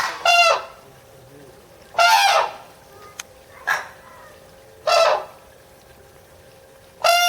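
Red-crowned cranes calling: short, loud, high calls, rich in overtones, repeated every second or two.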